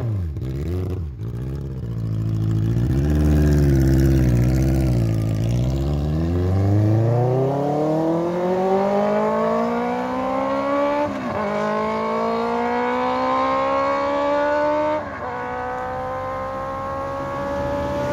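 Benelli GT motorcycle with a Toce three-outlet full exhaust system accelerating hard through the gears on a fly-by. The engine note wavers low at first, then climbs steadily, with two brief breaks at gear changes in the second half.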